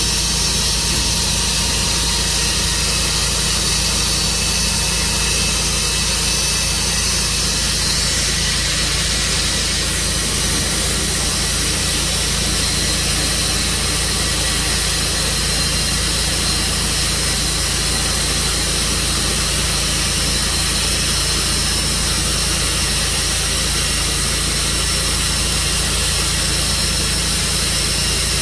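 Tru Cut sawmill running steadily, its engine droning under a loud, even hiss as the saw works through a cherry log.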